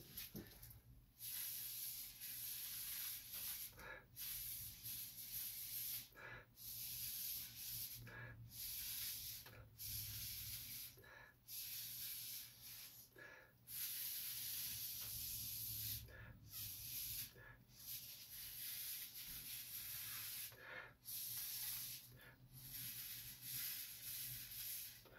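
Air blown out of a clear plastic tube onto wet ink: a steady hiss in repeated bursts of one to two seconds, each broken off by a short pause.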